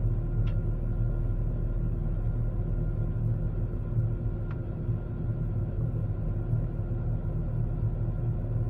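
Steady low rumble of an Airbus A380 in flight, engine and airflow noise heard from inside the cabin, with a faint steady hum on top. Two faint ticks come about four seconds apart.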